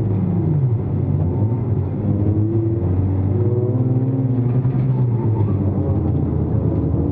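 Toyota Vios race car's engine heard from inside the stripped cabin. Its note falls over about the first second as the car slows for a corner, then rises again as it pulls away, and keeps wavering with throttle.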